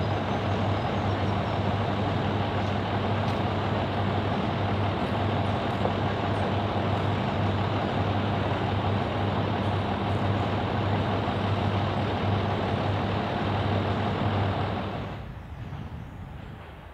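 DRC-class diesel railcar idling at a standstill: a steady engine drone with a deep hum underneath. It stops abruptly about two seconds before the end.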